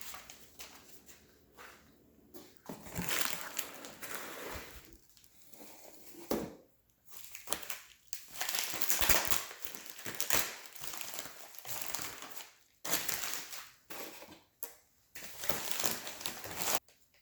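Packing material crinkling and rustling in irregular bursts as a shipped package is unpacked by hand.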